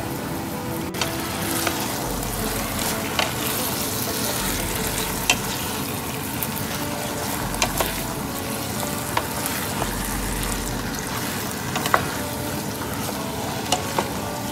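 Chicken pieces sizzling in a metal pot on a bed of sautéed onions, garlic and tomatoes, turned with a wooden spoon that knocks against the pot now and then.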